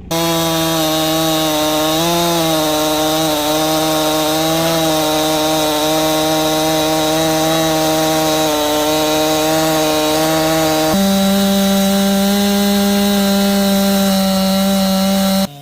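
Stihl MS 261 two-stroke chainsaw running at high revs while sawing a log. The engine note holds with a slight waver, steps up in pitch about eleven seconds in, and cuts off abruptly near the end.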